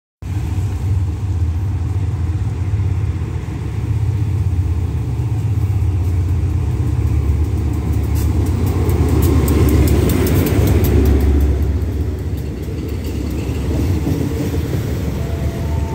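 Diesel locomotive of an arriving passenger train rumbling as it draws alongside the platform. It is loudest as it passes, about ten seconds in, with a quick run of clicks, then the coaches roll by as the train slows to stop.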